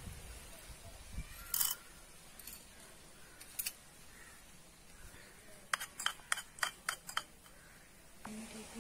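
Small metal utensils clinking against miniature steel bowls and an aluminium pan: a few separate clinks, then a quick run of about seven light taps near the end.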